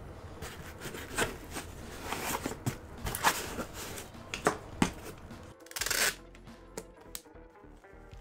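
Cardboard shipping box being handled and its flaps folded shut, with scattered clicks and rustles, then packing tape pulled off a handheld tape dispenser in a short noisy burst about six seconds in.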